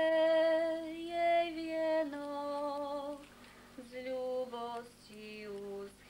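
A woman singing a slow Slovak folk song unaccompanied, holding long notes at first, then stepping down the melody in shorter notes with brief breaths between phrases.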